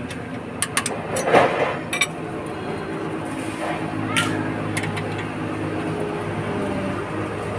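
Wrenches and a screwdriver clinking against the rocker arms and adjusting screws of a FAWDE CA4DF3 diesel engine's valve train as the valve clearance is set. There are several sharp metal clicks in the first two seconds and another about four seconds in, over a steady low mechanical hum.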